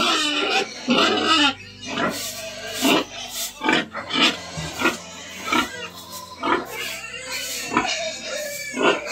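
Several domestic pigs squealing and grunting in short, irregular bursts, one after another, as feed is poured into their trough.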